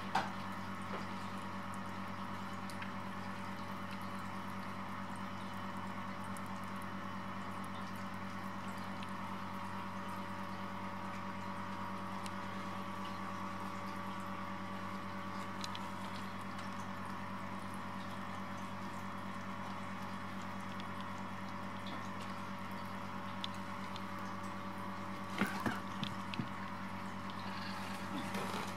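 A steady low hum with several higher tones held throughout, with a few faint clicks, most of them about 25 seconds in.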